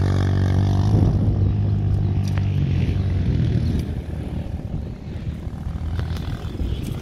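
Honda CRF230F single-cylinder four-stroke dirt bike engine running as the bike rides away along a dirt track. The engine's tone holds steady for the first couple of seconds, then fades and grows rougher as the bike gets farther off.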